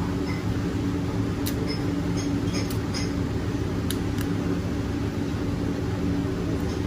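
A steady low mechanical hum with several fixed low tones, like a kitchen extractor or refrigeration unit running. A few faint clicks and taps fall between about one and a half and four seconds in.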